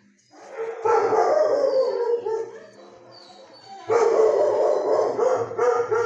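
Dog howling: one long falling howl about a second in, then a second long howl from about four seconds in.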